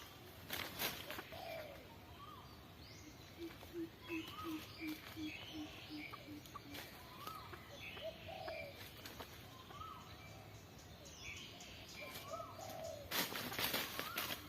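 Several birds calling together. One sings a run of about ten short, evenly spaced low notes falling slightly in pitch. Another repeats a rising-then-falling call every second or two, over higher chirps. A short rushing burst comes about half a second in and a longer one near the end.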